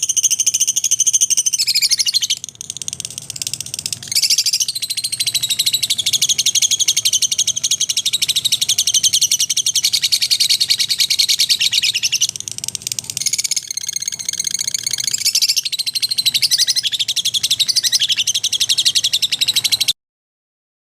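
A group of lovebirds chattering, with dense, continuous high-pitched chirps and squeaks that cut off suddenly near the end.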